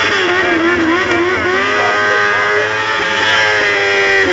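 Motorcycle engine revved hard through a burnout: the revs rise and fall a few times, then climb and hold high for the last couple of seconds.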